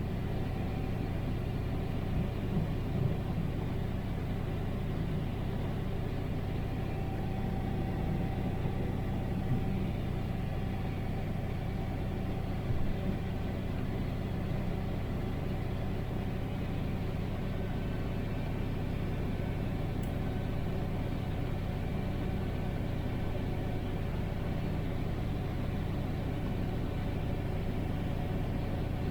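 Combine harvester running steadily while harvesting corn: a constant engine and machinery drone with a faint steady whine above it.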